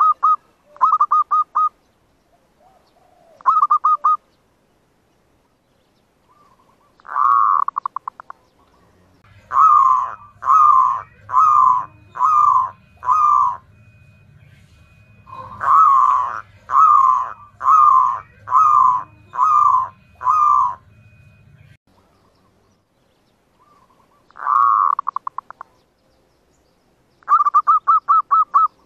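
Zebra dove (perkutut) lure song. It opens with quick stuttering trills of short notes, then a series of five coos and a series of six coos, single drawn-out coos before and after them, and another fast trill near the end. This is the call played to draw wild zebra doves to a trap, and there is a faint low hum under the middle coos.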